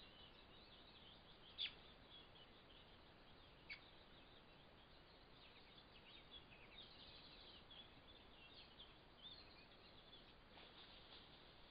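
Faint dawn birdsong of many small chirps and twitters over a steady hiss, heard through a trail camera's small microphone, with two louder short calls about one and a half and three and a half seconds in.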